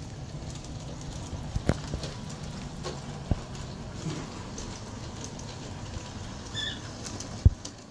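Aristo-Craft G-scale 0-4-0T steam locomotive and passenger cars running on brass track: a steady low motor hum with a few sharp clicks, and a louder knock near the end. A short high chirp comes about two-thirds of the way through.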